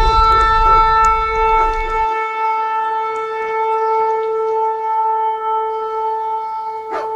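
A long, steady horn-like blast, the trumpet sound of the 'strange sounds in the sky' kind, held on one pitch and slowly fading. A deep rumble underneath cuts off about two seconds in.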